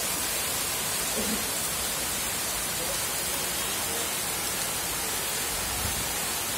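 Steady monsoon rain falling, an even hiss that keeps up without a break.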